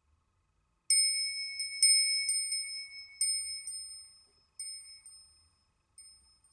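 A built-in HTC Desire C ringtone: a bell-like chime struck again and again at uneven intervals, each ding ringing and decaying, the strikes growing sparser and fainter, with a last faint ding near the end.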